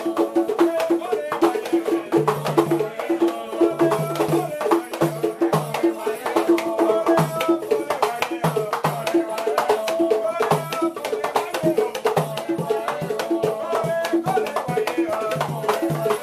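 Batá drum ensemble playing a steady interlocking Afro-Cuban ritual rhythm of open tones and sharp slaps, with the brass bells around the largest drum jingling. Voices sing over the drums.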